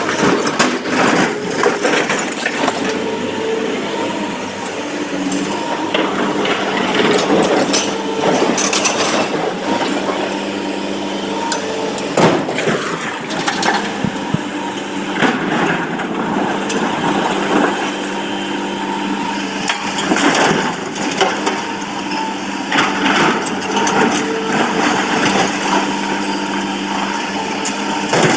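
SANY hydraulic crawler excavator's diesel engine running steadily under load, with irregular crunching and clattering of broken stone scraping against the steel bucket as it digs and loads. Near the end a bucketful of rock clatters down into a dump truck's steel bed.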